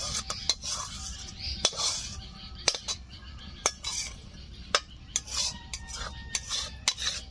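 A metal spoon scraping and clinking against metal cookware as thick chicken curry is scooped out of the pan into a stainless steel bowl, with irregular sharp clinks among the scraping.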